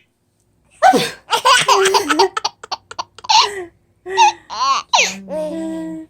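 A man's loud sneeze about a second in, then a baby laughing in a run of short bursts and rising-and-falling squeals.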